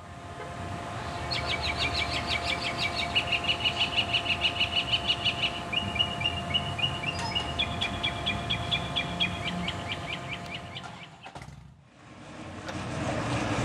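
A songbird singing rapid trilled phrases, each a fast run of repeated chirps that steps to a new pitch, over a steady low hum and outdoor background noise. The sound fades in at the start and fades out shortly before the end.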